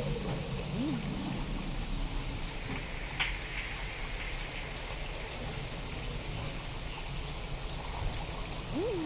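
Steady rain falling, with a low rumble underneath and a single sharp drip-like click about three seconds in. Short swooping tones rise and fall about a second in and near the end: sound-designed touches meant to make the storm sound alien.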